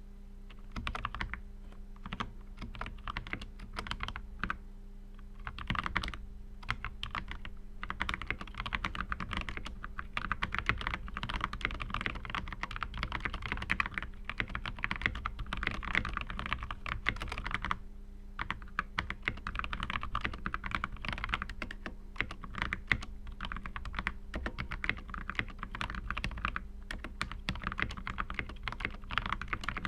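Continuous fast typing on a GMMK mechanical keyboard with lubed Halo Clear switches and Flashquark OEM keycaps: a dense run of keystrokes that pauses briefly about five seconds in and again near eighteen seconds. A faint steady hum runs underneath.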